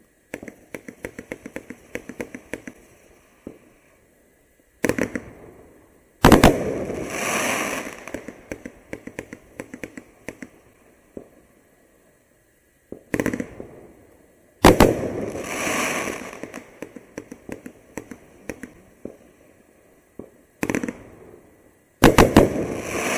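A 500-gram multi-shot firework cake firing in volleys. Sharp launch reports are each followed by a rushing burst and a long tail of crackling. The loudest volleys go off about six and fifteen seconds in, and again near the end.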